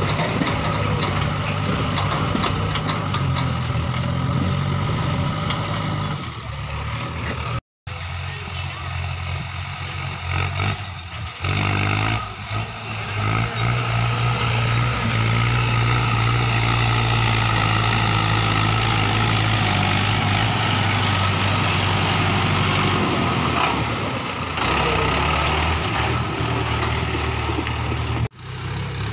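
Mahindra 575 DI tractor's four-cylinder diesel engine running steadily under load, pulling a fully loaded trolley. The sound cuts out completely for a moment about eight seconds in and dips again near the end.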